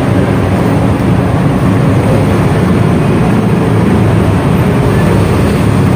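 A vehicle engine running steadily at low speed, a continuous loud rumble with road noise and no sudden changes.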